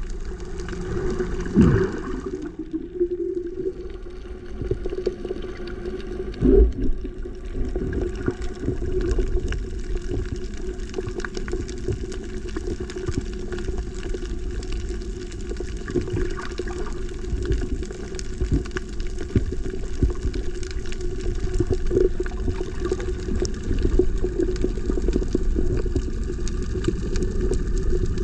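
Muffled underwater sound picked up by a submerged camera over a coral reef: a steady low rumble of moving water with a scatter of faint clicks. Two sharper knocks come about one and a half seconds and six and a half seconds in.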